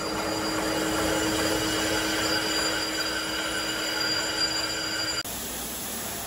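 CNC lathe boring bar cutting steel inside a saver sub's threaded box end on a final pass: a steady metal-cutting sound with several held ringing tones. It cuts off abruptly about five seconds in, leaving a quieter, even hiss.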